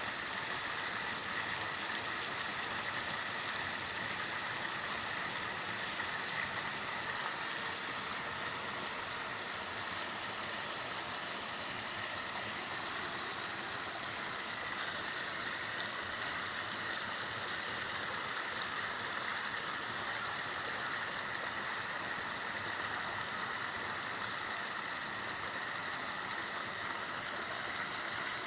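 A steady, even watery hiss with no breaks or sudden sounds.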